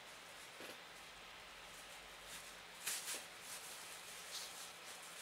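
Thin plastic bag crinkling in a few brief, faint bursts as a kitten wriggles and paws inside it, the loudest crinkles about three seconds in.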